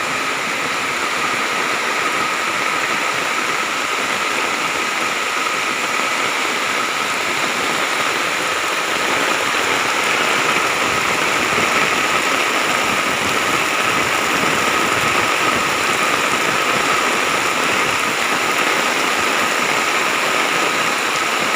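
Heavy rain pouring down steadily, with the rush of standing and running floodwater, growing a little louder about halfway through.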